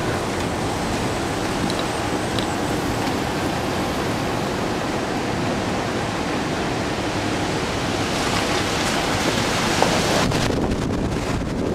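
Steady rushing road and wind noise of a moving car. Near the end, wind begins buffeting the microphone.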